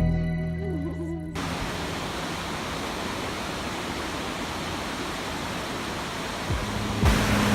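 Background music fading out, then the steady rushing of a waterfall, growing louder near the end.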